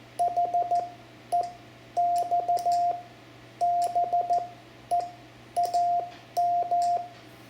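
Morse code (CW) sidetone from a Yaesu FT-710 transceiver: a single steady beep keyed on and off in groups of dots and dashes, sending the next words of the exchange, which describe the antenna as a hex beam.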